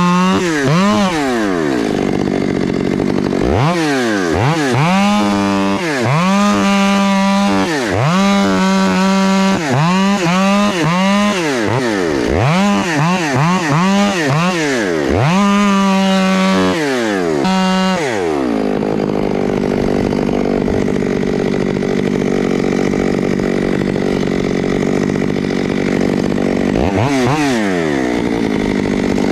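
Chainsaw revved up and dropped back to idle again and again, then held in a steady cut for about nine seconds, and revved twice more near the end. It is cutting into a windthrown tree under heavy tension, with a compression cut from underneath and a tension cut from the top.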